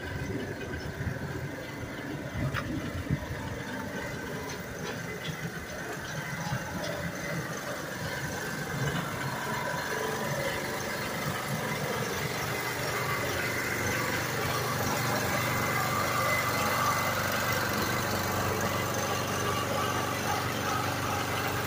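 Steady street traffic and engine noise, growing gradually louder.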